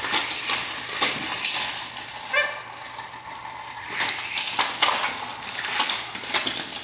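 Repeated clicks and clatter of small die-cast toy cars and plastic race-track pieces being handled and knocked together. There is one brief high squeak about two and a half seconds in.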